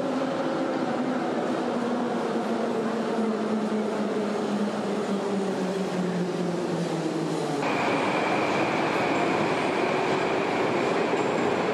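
Tashkent Metro train running, its motor whine slowly falling in pitch as it slows. Partway through, the sound changes abruptly to louder running noise with a steady high whine.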